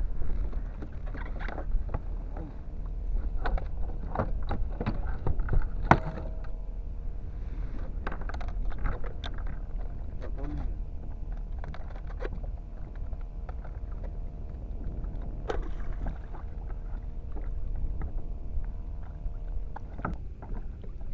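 Sounds aboard a kayak on the water: a steady low rumble with scattered short knocks and clicks from the hull and gear being handled.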